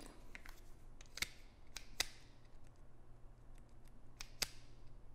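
A pistol being seated in a plastic competition holster and rocked in it to test the fit of the passive lock: a few separate sharp plastic clicks and knocks, the loudest about two seconds in and another near the end.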